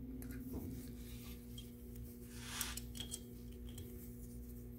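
Faint handling noises from working on a disassembled gear pump: a few light clicks of metal parts and a soft scrape a little past halfway, over a steady low hum.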